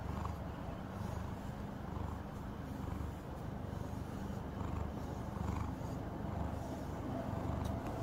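Calico cat purring steadily, a low rumble that swells and eases with each breath, roughly once a second.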